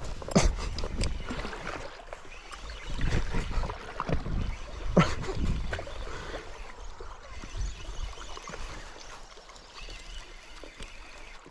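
Sea water lapping and trickling around shoreline rocks, with gusts of low rumble and two sharp clicks, about half a second in and near the middle, while a spinning reel is cranked to retrieve a lure.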